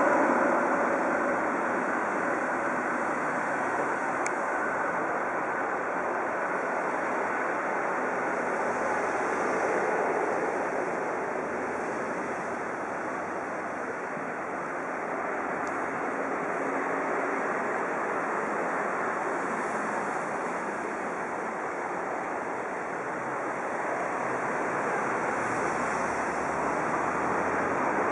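Trensurb Hitachi electric multiple unit pulling out of the station, its motor whine fading within the first second or so as it moves off. A steady rushing noise follows as it rolls away into the distance.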